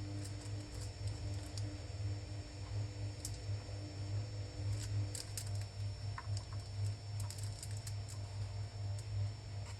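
Sparse small clicks and light taps of soldering tools working on the chip's pins, over a steady low electrical hum.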